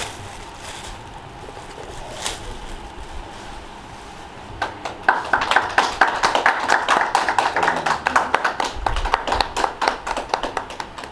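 A few quiet seconds, then a small group of people clapping, beginning about four and a half seconds in and keeping on steadily.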